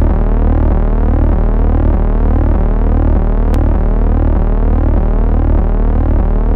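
Synthesised intro sound: a loud, steady low drone under layered electronic tones that keep gliding upward in a repeating sweep.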